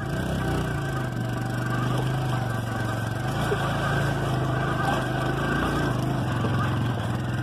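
Motorcycle engine running at a steady, even pitch while riding, heard from on board the bike.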